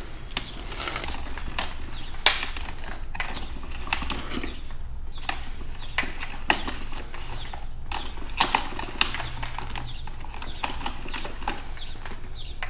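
Irregular clicks, taps and knocks of hard plastic parts being handled on an electric pressure washer, with a faint steady low hum underneath.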